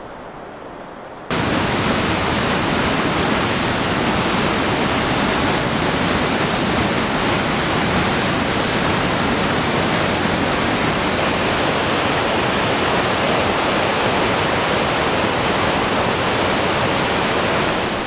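Waterfall on a large river: a loud, steady rush of heavy falling water, coming in abruptly about a second in after a fainter river sound.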